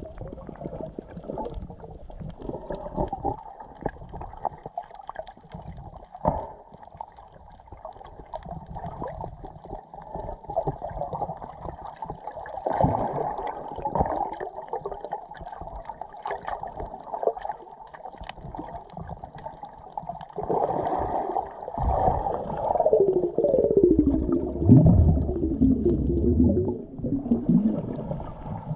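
Muffled underwater water sound picked up by a submerged camera while snorkeling: a steady low churn with small crackles, then louder gurgling and bubbling with falling sweeps in pitch in the last third.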